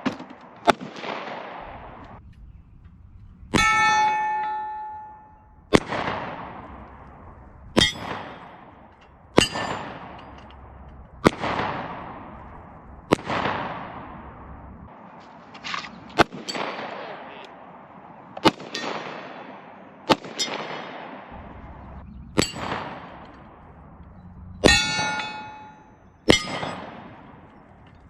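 Rifle shots at a steady pace, about one every two seconds, each trailing off in an echo. Twice a steel target rings clearly for about a second with the shot, a metallic clang of a hit on the plate.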